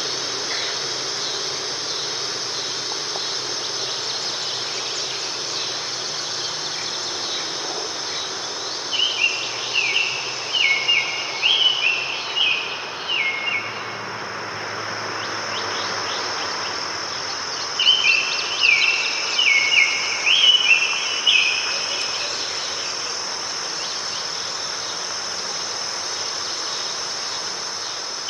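A steady high insect trill over an even wash of sea surf. A songbird sings two runs of quick, repeated short notes, the first about nine seconds in and the second about eighteen seconds in.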